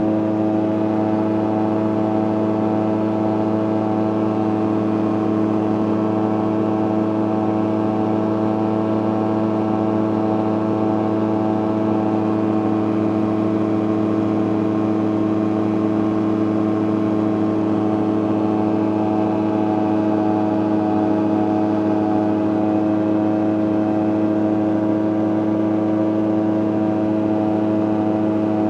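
CGS Hawk ultralight's engine and propeller running at a steady cruise, about 5650 rpm, heard from the cockpit: a constant drone at an unchanging pitch.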